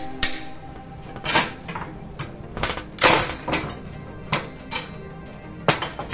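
Sharp clinks and knocks of 6 mm green glass pieces and hand tools being handled and set down on a glass-cutting table: about seven irregular strikes, the loudest about three seconds in.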